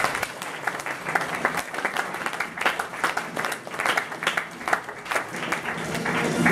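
Applause from a small audience, with one person clapping close by.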